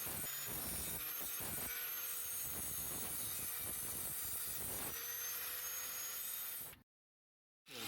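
Electric sander running against a rusty steel exhaust pipe to take the rust off: a steady motor whine under rough abrasive scraping. The sound cuts out for about a second near the end, then starts again with the motor spinning back up.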